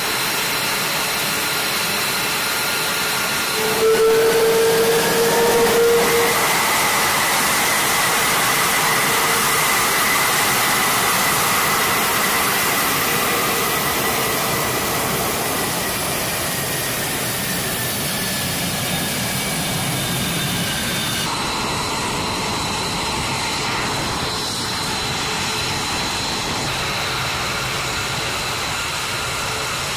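Fighter jet engines running on the flight line: a steady loud rush with a high whine. About four seconds in the whine rises in pitch and the sound swells for a couple of seconds, and about twenty-one seconds in the sound changes, the rush thinning.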